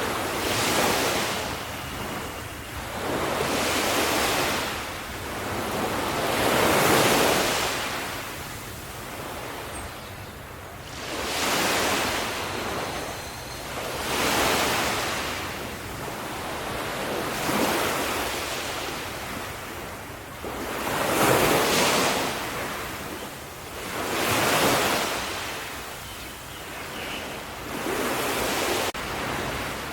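Sea waves washing onto a shore, swelling and falling away about every three to four seconds, nine surges in all.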